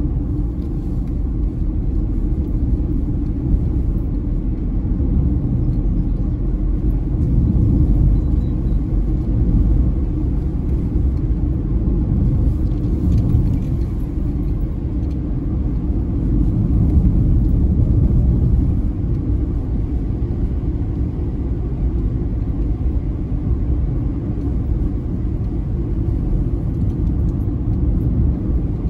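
Steady low rumble of a car driving at road speed, heard from inside the cabin: engine and tyre noise with gentle swells in level.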